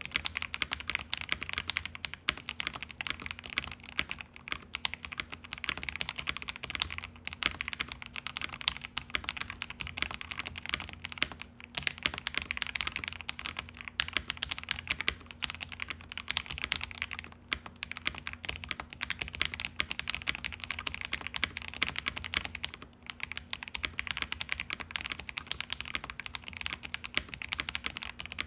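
Continuous typing on a KBD67 Lite R2 custom mechanical keyboard with a polycarbonate plate and lubed KTT Mint linear switches: a fast, uneven run of keystrokes, with a few short pauses between bursts.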